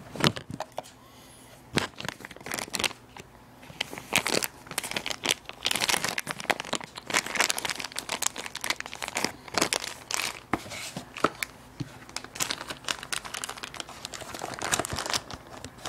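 Plastic packaging crinkling and rustling in irregular bursts as a phone is handled and slid back into its cover.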